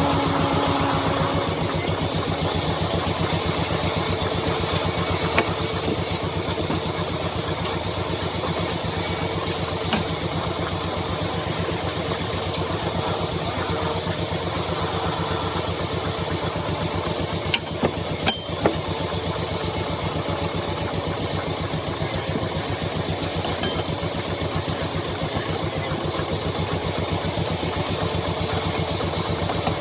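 Woodturning lathe running steadily with a fast, even thrum, a few sharp knocks a little past the middle.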